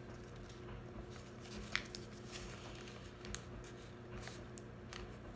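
A sheet of paper being folded and creased by hand: soft rustling with a few faint, sharp crackles as the folds are pressed down, over a low steady room hum.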